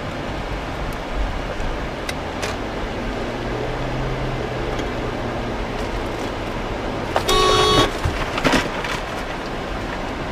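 Steady road and engine noise of a moving car heard from inside, then a car horn honks loudly for under a second about seven seconds in.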